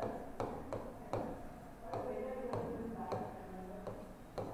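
Stylus tapping and ticking on the glass of an interactive display during handwriting: a run of short, irregular taps, roughly one every half second.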